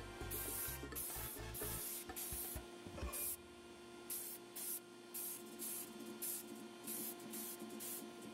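Paint spraying onto plastic model parts in short hissing bursts, one after another, with a pause of about a second partway through.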